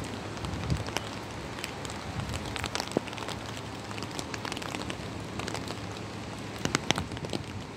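Steady noise of storm rain and wind, dotted with many sharp taps like drops striking close by, with a few louder knocks about three seconds in and near the end.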